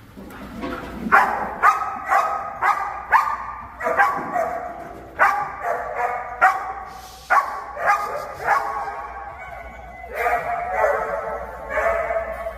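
German Shepherd protection dog barking repeatedly at a decoy in a bite suit, over a dozen sharp barks at about one to two a second with short pauses: guard-the-door alert barking that warns off the threat.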